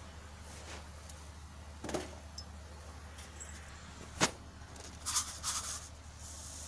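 Light clicks and clinks of kitchen utensils being handled over a steady low hum. The loudest is one sharp tap about four seconds in, and a quick pair of clinks comes a second later.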